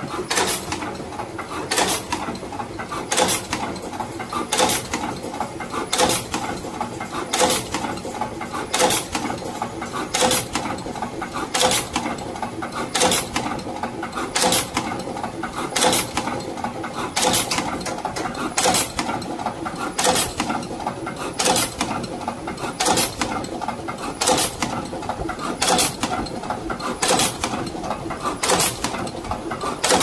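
Automatic wire cutting, stripping and crimping machine running steadily through its cycles: a sharp clack about every second and a half as the crimp applicator strikes, with a lighter click between each, over a continuous machine hum.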